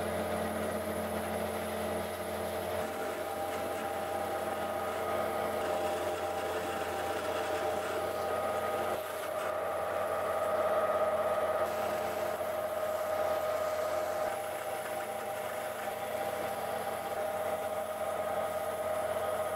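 Bandsaw running with a steady hum while its blade cuts through a block of wood.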